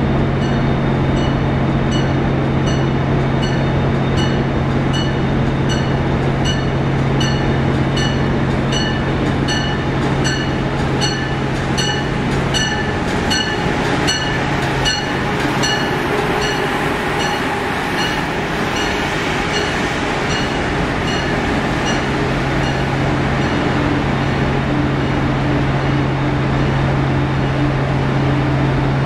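Amtrak Acela Express trainset ringing its bell at about one and a half strikes a second as it pulls slowly into the station, over a steady low hum from the train. The bell fades out about halfway through, leaving the hum.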